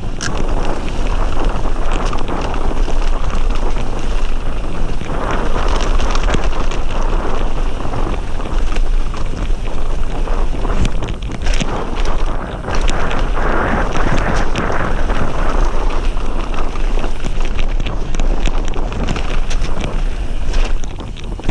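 Wind noise on the microphone and the tyres of a mountain bike rolling fast over a wet gravel trail, with frequent rattles and knocks from the bike over bumps.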